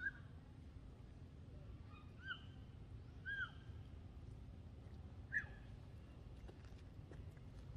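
Macaque giving short coo calls, four brief rising-and-falling tones spread over about five seconds, over a steady low background hum.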